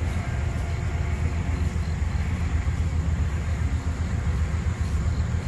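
Amtrak passenger train's cars rolling along the rails, a steady low rumble of wheels on track.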